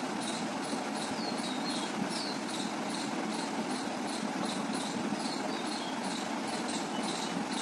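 Steady outdoor background noise with a short, high chirp repeating about twice a second.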